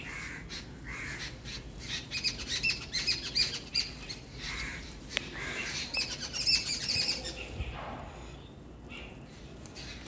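Garden birds chirping and twittering in quick runs of high notes, busiest about two to four seconds in and again around six to seven seconds in.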